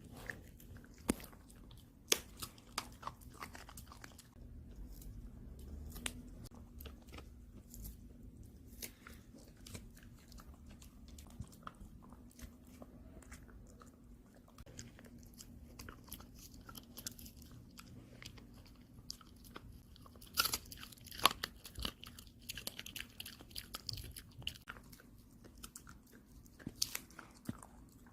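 A dog gnawing and chewing on a dog chew: irregular crunching and cracking bites, the loudest cracks coming about twenty seconds in.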